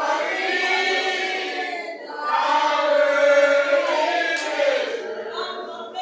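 A church congregation singing a spiritual together in two long drawn-out phrases; the second phrase, starting about two seconds in, is louder.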